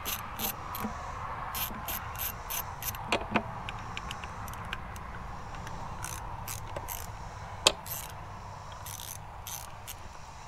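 Socket ratchet with an extension clicking in short runs, with pauses between, as a 10 mm bolt holding a four-stroke outboard's voltage regulator is backed out.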